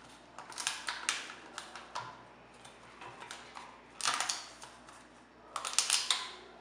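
A leaf stalk being mashed and scraped against the inside of a thin plastic cup to squeeze out its sap, giving several irregular bursts of scratchy clicking and scraping.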